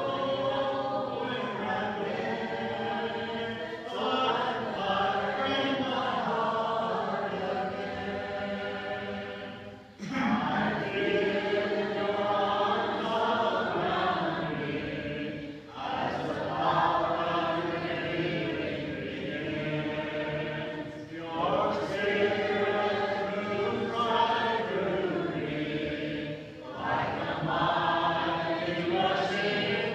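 Congregation singing a hymn a cappella, many voices together in sustained phrases, with short breaths between lines about every five or six seconds.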